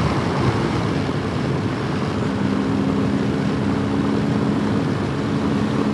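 Motorcycle riding at a steady cruise of about 95 km/h, heard from a helmet-mounted microphone: wind noise, with the engine's steady hum beneath it, which becomes clearer from about two seconds in.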